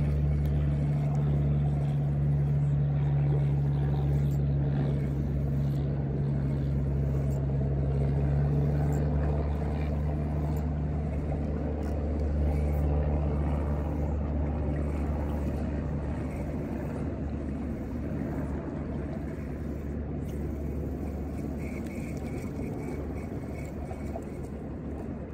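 A motorboat's engine runs steadily with a low hum that slowly fades away over the clip.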